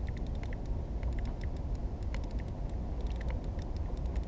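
Wind rumbling steadily on the microphone, with scattered light clicks and ticks over it as a spinning reel is cranked against a hooked fish.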